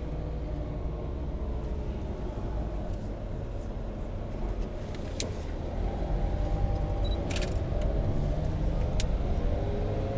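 Engine and road noise of a car driving slowly through city traffic, heard from inside the car. The engine pitch rises a little in the second half, and a few sharp clicks sound.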